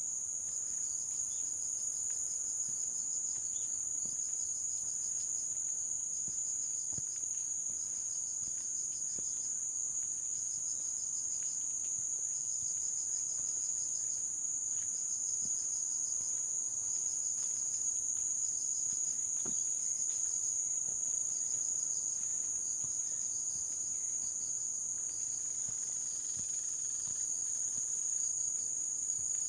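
Chorus of singing insects: a continuous high-pitched buzz with, over it, another insect chirping in quick pulsed trains of about a second, repeating every second or two.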